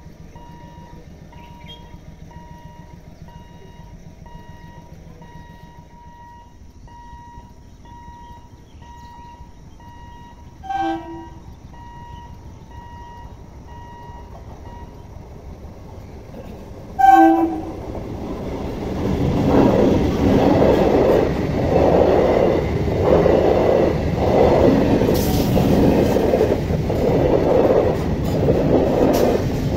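Electric multiple-unit (EMU) local train sounding two short horn blasts several seconds apart, then running past at the level crossing: a loud rumble with a regular wheel clatter over the rail joints.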